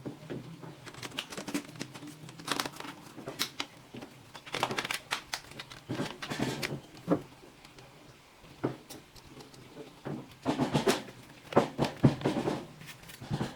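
Irregular clicks, taps and crinkling of hard plastic parts being handled during laptop repair work, coming in clusters with short pauses between them.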